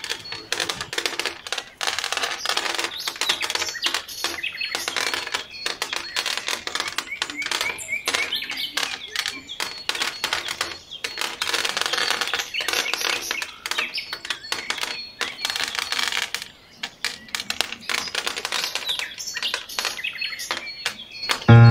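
Small decorative pebbles dropped by hand onto the hard painted base of a miniature pond and onto each other, making many quick irregular clicks and clatters.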